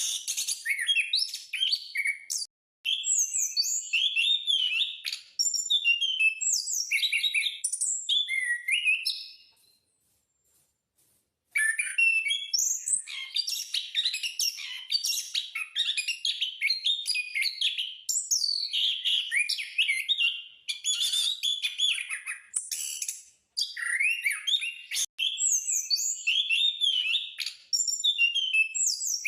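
Ground thrush (anis/punglor) singing hard: a fast, almost unbroken run of varied whistled and chattering phrases. The song breaks off for about two seconds roughly a third of the way through, then resumes just as densely.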